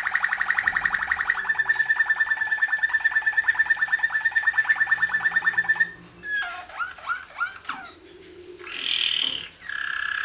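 Canary singing. A long, fast, even rolling trill shifts slightly in pitch about a second and a half in, then gives way to a run of short gliding notes and a brief higher note, and a new rolling trill starts near the end.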